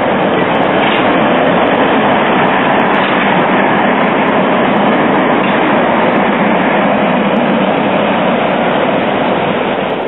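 CKD Tatra T3 trams running past on street track: a steady, loud noise of wheels on rails.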